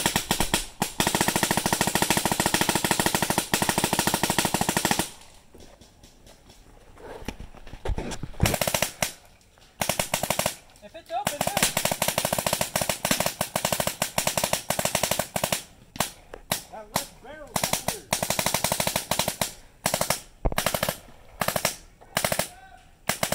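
Cobra Angel LED electronic paintball marker firing rapid strings of shots. It fires one unbroken string for about five seconds, then after a pause a series of bursts with short gaps between them, the bursts growing shorter near the end.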